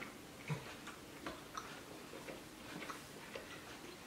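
Faint, irregular clicks and smacks of gum being chewed.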